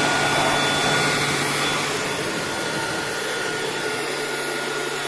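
Polymake 400 W handheld electric air blower running at high speed: a steady rush of air with the motor's whine over it, easing slightly after about two seconds.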